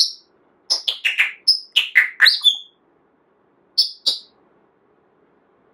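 Pet parrot giving a quick run of about ten short, sharp chirps and whistles with sliding pitch, then two more chirps after a short pause, before falling quiet.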